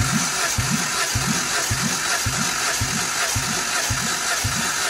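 Starter motor cranking a Jeep ECN 2.0-litre four-cylinder petrol engine for a cold compression test on cylinder one, which reads 12 kg/cm². The cranking pulses evenly about twice a second.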